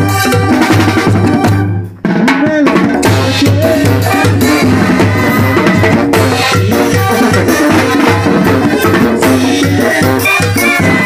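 A Latin dance band playing live, with drums, cymbals and an even bass pulse under the tune. The music drops out for a moment about two seconds in.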